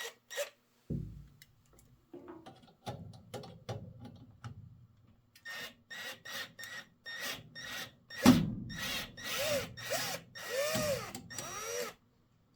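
Cordless drill-driver run in a string of short bursts, its motor pitch rising and falling each time, while the screws holding a furnace pressure switch are backed out. Scattered clicks and handling knocks come before the bursts start, about halfway in.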